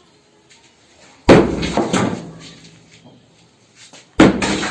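Two heavy impacts on concrete, about three seconds apart, each sharp and loud with a short ringing decay.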